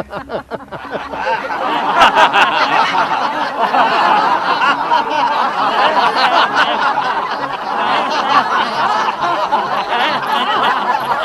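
Two people's rhythmic 'ha-ha' laughter fades out in the first second. Then a large group builds up, laughing loudly together in a laughter yoga exercise, many voices overlapping.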